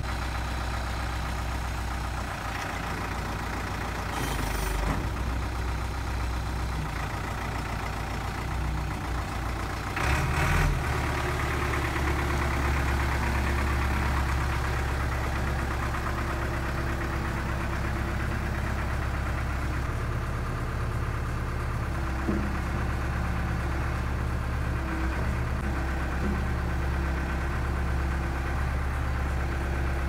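2001 New Holland LB75B backhoe loader's diesel engine running steadily while the backhoe boom is worked to lift a bucket. The engine note changes and grows a little louder about ten seconds in. Two brief knocks come about four and ten seconds in.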